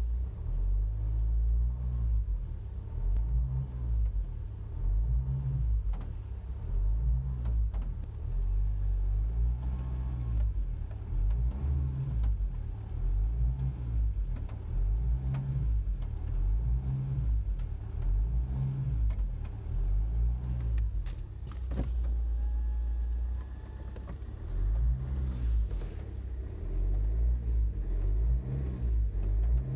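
Low hum inside the cabin of a Vauxhall Astra H 1.9 CDTI with its four-cylinder diesel running, swelling and fading in a slow regular beat about every second and a half. The owner cannot trace the cause: the hum is heard only inside the car, between about 1,000 and 2,000 rpm and when setting off.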